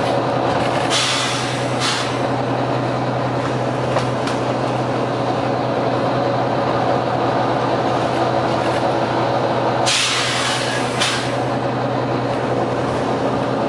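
Volvo B9TL double-decker bus engine running steadily, with two short bursts of compressed-air hiss, one about a second in and one at about ten seconds.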